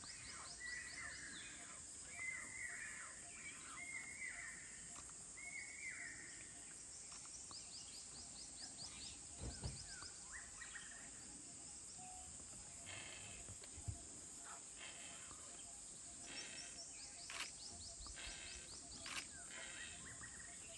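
Faint forest birdsong: several small birds calling in short repeated chirps and quick sweeping notes, over a steady high hiss. Two brief low thumps come about halfway through.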